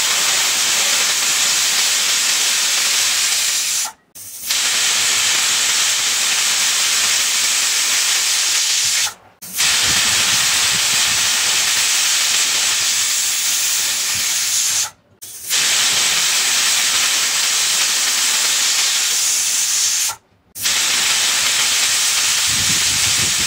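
Prestige Popular pressure cooker whistling: steam blasting out past the weight valve in a loud, steady hiss. It comes as five long blasts of about four to five seconds each, separated by short, abrupt silences. These are the cooker's whistles counted to time the pressure-cooking.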